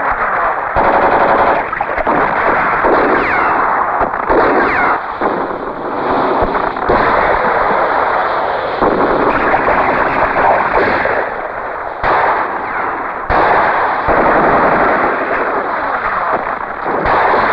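Battle gunfire: rapid bursts of automatic-weapon and rifle fire, almost unbroken, with short lulls.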